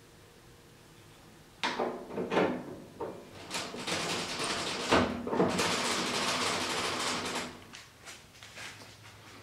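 Height-adjustment crank of a CWI 17-inch drum sander being fitted and turned by hand: a few sharp metal knocks and rattles, then several seconds of continuous scraping and rubbing from the turning crank and lift mechanism, which stops well before the end.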